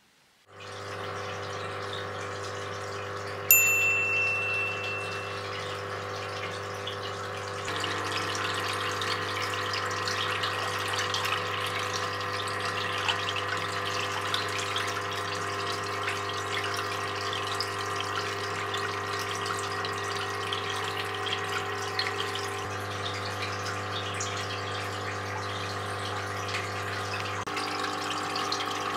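Small water pump humming steadily while water rushes and splashes into a glass tank, filling it. A single bright ding rings out about three and a half seconds in.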